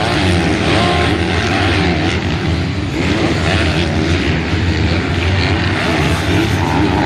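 Several MX2 motocross bikes' engines racing, their pitch rising and falling as the riders rev and shift.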